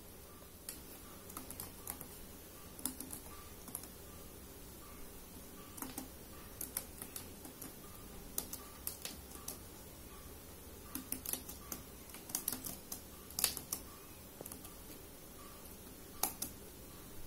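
Computer keyboard being typed on: faint, irregular runs of key clicks with short pauses between them.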